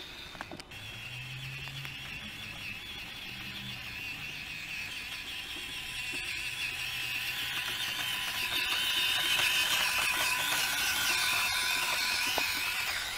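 Axial SCX24 micro rock crawler's small electric motor and geared drivetrain whining as it drives, with a steady high-pitched whine that grows louder over the second half.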